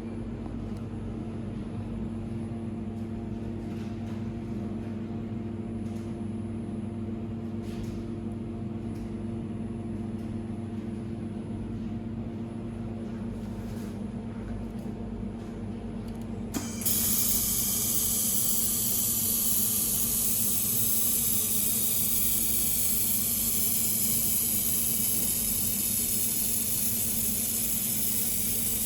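Automatic laser welding machine running: a steady hum with a few faint clicks, then about 17 seconds in a loud, steady hiss cuts in abruptly and carries on.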